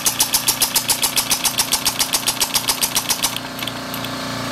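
Two-stroke generator engine converted to run on compressed air through a solenoid inlet valve, chuffing in even puffs about five a second, then stopping about three seconds in. It will not keep running without its auxiliary exhaust. A low steady hum carries on after it stops.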